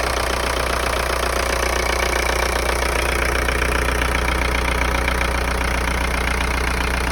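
Volkswagen AFN 1.9 TDI four-cylinder diesel idling steadily, with no change in speed.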